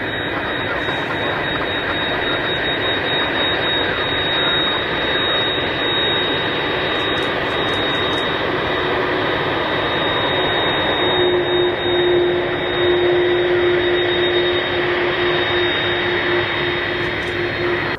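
Cargo jet airliner's engines running loudly: a dense steady rush with a high, steady whine on top, growing slightly louder. A lower steady tone joins about halfway through.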